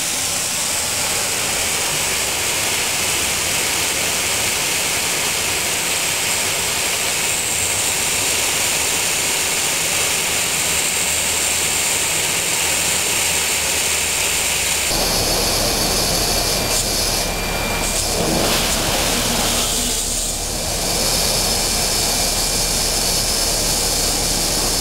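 Compressed-air-driven water vacuum cleaner running: a loud, steady rush of air that starts abruptly. About fifteen seconds in its tone shifts suddenly and grows fuller.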